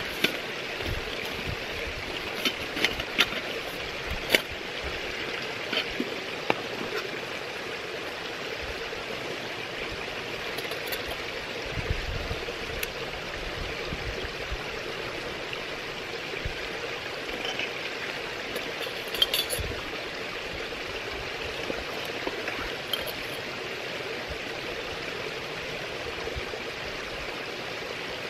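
Steady rush of a nearby stream. Over it, light clinks and rattles of titanium camping gear being handled and unpacked (mug, folding spork and stove parts), most often in the first several seconds and again briefly past the middle.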